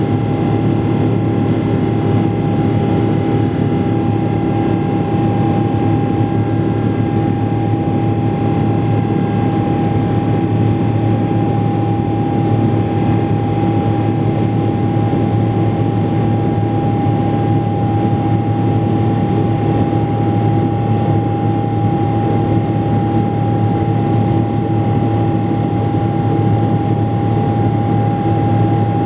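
Boeing 777-300 jet engine and airflow heard from inside the passenger cabin in flight: a loud, steady drone with a constant whine on top and a low hum beneath.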